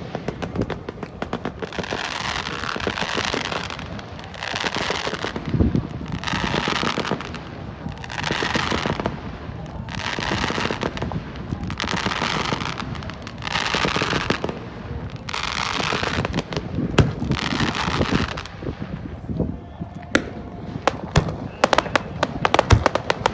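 Fireworks display: a string of crackling shells, each bursting into about a second of dense crackle, one after another about every two seconds. Near the end this gives way to a quick run of sharp, separate bangs.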